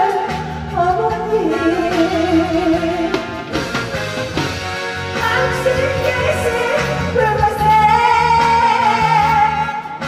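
A woman singing a Korean trot song with heavy vibrato over a backing track.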